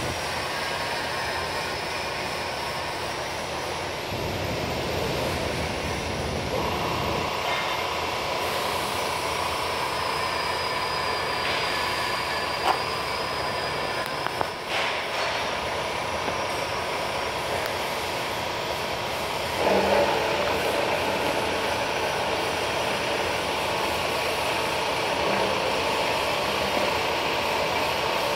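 Metal-cutting band saw running with a steady machine drone; a steady high tone sets in about six seconds in, and the noise gets louder again near twenty seconds in. A few brief knocks sound midway.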